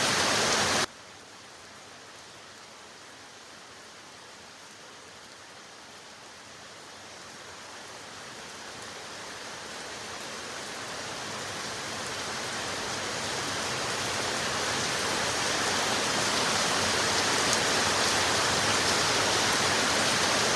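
Steady rainfall, an even hiss of falling rain. About a second in it cuts down sharply to a much quieter level, then swells gradually back to full strength over about ten seconds.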